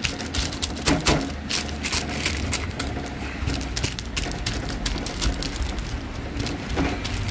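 Baking paper crinkling and rustling as gloved hands fold it over a flat minced-meat patty and press it down, with many small crackles throughout.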